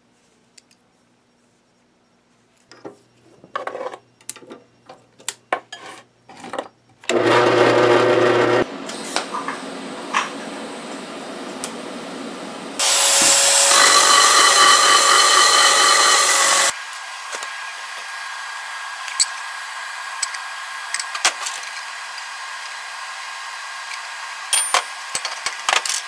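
Metal pipe parts and fittings clinking and knocking as they are handled, then a loud power tool, an electric drill, running in two stretches, the second a whining run of about four seconds. Then a steady hiss with scattered crackles from a TIG welding arc.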